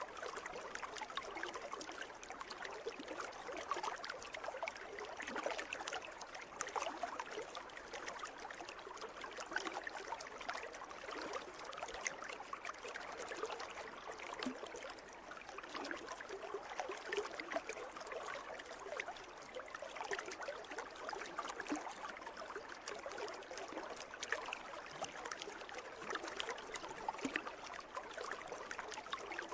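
Water in a pool trickling and lapping continuously, a steady wash of many small splashes.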